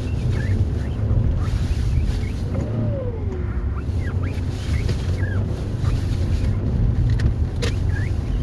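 Audi A4 quattro driven over snow, heard from inside the cabin: a steady low rumble of engine and tyres, with a few faint short squeaks and a couple of clicks near the end.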